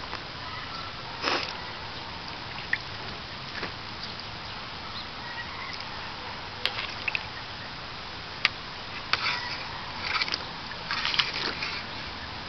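Savannah cat's paws splashing and sloshing in the shallow water of a plastic kiddie pool as it paws at the water and steps about: scattered brief splashes, busiest in a cluster near the end, over a steady background hiss.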